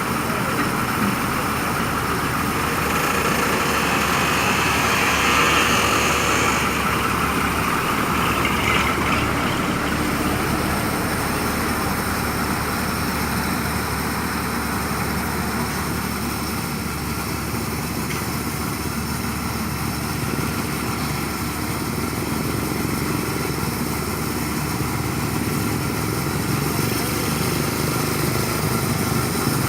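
Heavy diesel engines of road-paving equipment running steadily at a work site.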